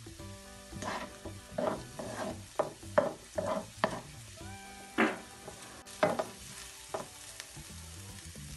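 Wooden spatula stirring chopped onion, garlic and ginger frying in coconut oil in a non-stick wok: a sizzle under quick scraping strokes, about two a second for the first few seconds, then slower strokes about a second apart.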